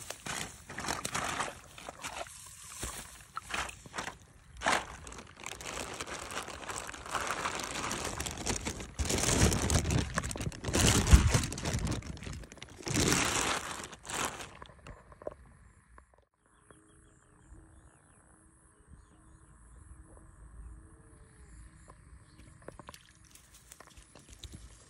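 A clear plastic bag crinkling and rustling loudly in irregular bursts as a caught fish is handled in it, along with grass rustling. After about fifteen seconds it stops suddenly, leaving a quiet outdoor background with faint steady tones.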